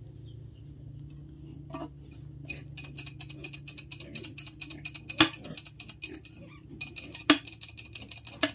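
Crackling and sizzling of a bamboo-skewered mouse roasting over glowing wood embers, thickening about two and a half seconds in, with two sharp pops, one about five seconds in and another about seven seconds in, over a low steady hum.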